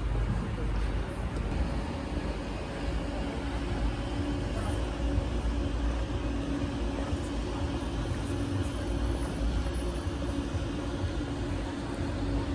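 Wind rumbling on the microphone and road noise from riding a bike through city traffic, with a steady low hum underneath.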